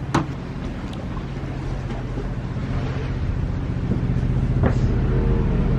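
Steady low drone of boat machinery, growing louder, with a sharp knock just after the start and another about two thirds of the way through.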